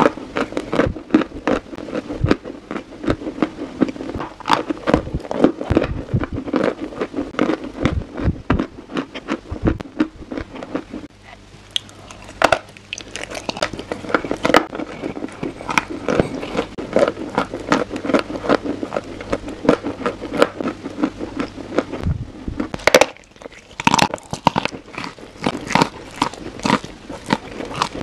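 Close-miked mouth crunching and chewing something brittle: dense crackly bites. There is a brief lull about eleven seconds in and another near twenty-three seconds.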